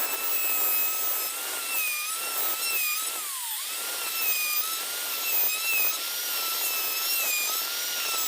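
Electric wood router running at high speed and cutting wood: a steady high whine over a rasping cutting noise. The whine wavers slightly and dips in pitch, then recovers, about three seconds in.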